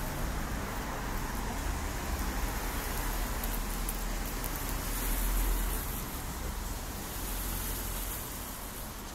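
Street traffic noise: an even hiss and low rumble of vehicles on a wet road, swelling briefly around five seconds in.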